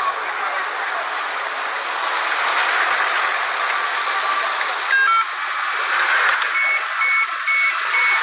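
Steady street background noise, then about five seconds in a few quick electronic tones, followed by a cash machine beeping repeatedly at one high pitch, about two beeps a second.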